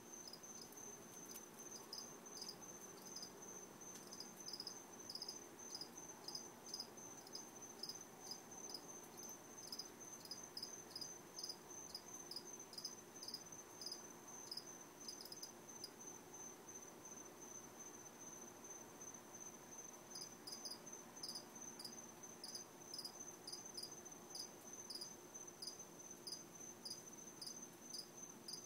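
Crickets chirping faintly in regular short chirps, about two a second, over a steady high trill. The chirps pause for a few seconds a little past the middle, then resume.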